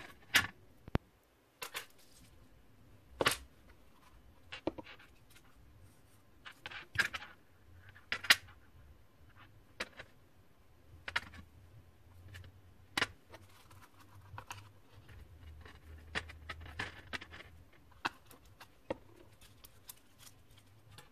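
Irregular clicks and light knocks of small copper pieces (a coil of copper wire, copper rings, a solder spool) being handled, picked up and set down on a tray.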